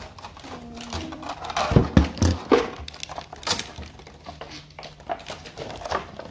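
Hard plastic knocking and clicking as a yellow plastic case is worked open and lifted off a Beyblade spinning top on a tabletop, the loudest knocks clustered about two seconds in.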